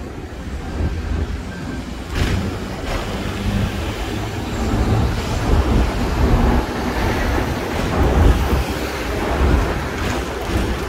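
Hong Kong double-decker electric tram running along its track, heard on board from the upper deck: a steady low rumble, with a short knock about two seconds in.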